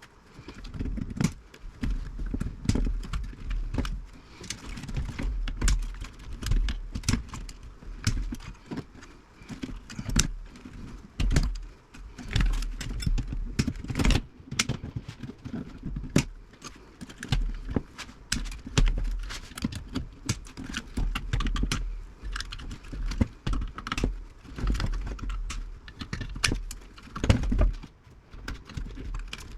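Irregular sharp clicks and snips of wire cutters cutting the old point-to-point wiring inside a 1950s Philco radio chassis, with dull knocks and metal clinks from handling the chassis.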